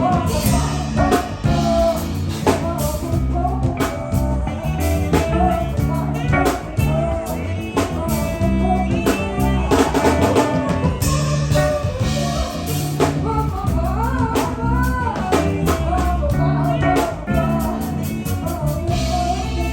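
A live band playing: drum kit, bass and electric guitar under a sung melody line.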